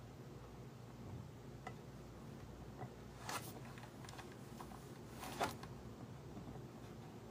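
Faint room tone with a few soft ticks and two short brushing rustles, about three and five and a half seconds in, from hands rubbing together and moving on a tabletop.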